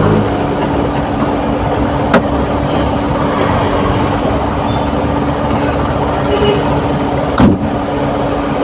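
Delivery vehicle driving on a wet road: a steady rumble of engine and road noise with a constant hum. There is a short click about two seconds in and a louder knock near the end.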